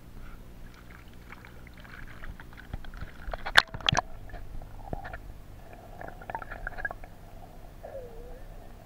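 Muffled underwater sound of a river heard through a submerged camera: low gurgling with scattered crackles and clicks, and one sharp loud knock about three and a half seconds in.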